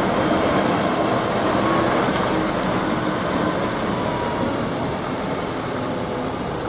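Diesel engine of a concrete mixer truck running steadily as the truck moves slowly past, easing off a little in the second half.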